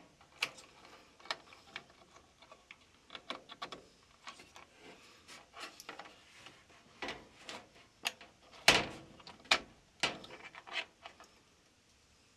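Plastic wiring-harness connectors being handled and pushed into a new Whirlpool dryer control board: a string of irregular plastic clicks and light knocks. The loudest knock comes about two-thirds of the way through.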